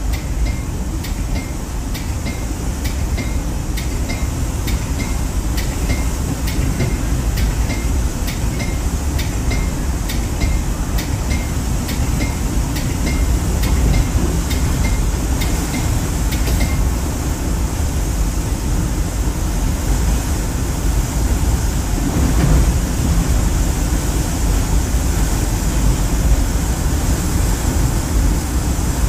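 Caltrain commuter train running, heard from on board: a steady low rumble of wheels on rails and the moving car. A faint tick repeats about twice a second through the first half or more, then stops.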